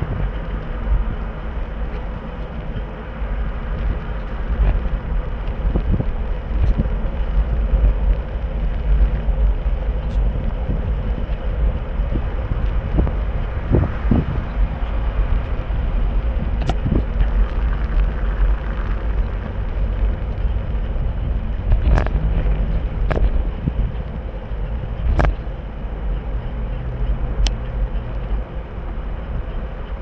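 Steady wind rumble on the microphone, with scattered sharp knocks and clicks.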